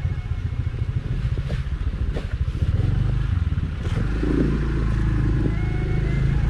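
Motorcycle engine running at low speed, with occasional knocks and rattles as the bike rolls over a rough dirt path.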